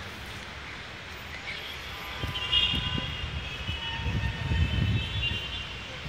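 Busy city-square ambience of traffic: a steady hum, with louder low rumbling from about two seconds in and a high, held tone above it.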